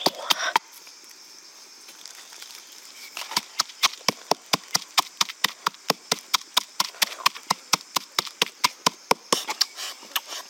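Rapid chopping with a knife, about five sharp strokes a second, with a pause of about three seconds near the start before the chopping resumes.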